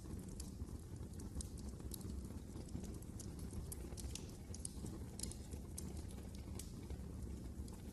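Wood fire burning in a fireplace: a steady low rumble of the flames with frequent irregular sharp crackles and pops from the logs.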